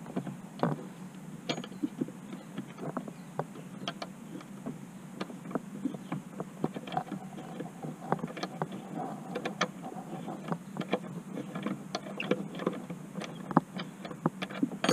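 An Allen key driving the mounting screw into a hatch-brace bracket by hand: a run of irregular light metallic clicks and taps over a steady low hum.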